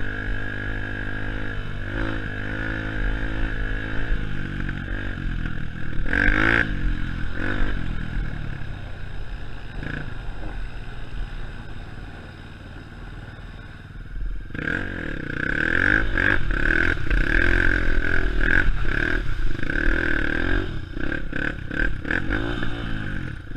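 Honda CRF150F dirt bike's single-cylinder four-stroke engine running under way, its revs rising and falling with the throttle. The revs drop to a quieter stretch around twelve seconds in, then climb hard again from about fourteen seconds. Scattered knocks and clatter come from the bike over bumps.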